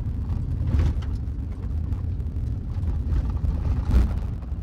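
Pickup truck driving on a gravel road, heard from inside the cab: a steady low rumble of tyres and engine, with two louder jolts about a second in and near the end.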